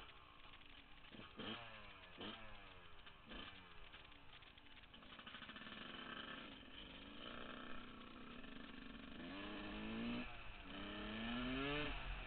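A 2000 Yamaha YZ125 dirt bike's 125 cc two-stroke single-cylinder engine. It is revved in three quick blips, then runs more steadily as the bike rolls off. Near the end it accelerates in two rising sweeps of pitch with a brief dip between them.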